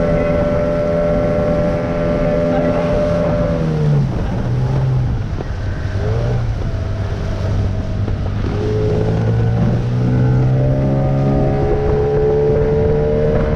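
Small outboard motor driving an inflatable dinghy across the water. Its revs drop a little before four seconds in, then climb steadily again from about eight seconds. Wind buffets the microphone throughout.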